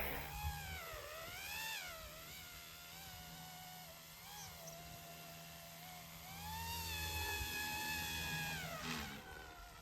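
Whine of a small direct-drive electric RC helicopter's motor and rotor in flight, its pitch rising and falling as the head speed changes. It holds higher from about six and a half seconds in, then falls away about nine seconds in.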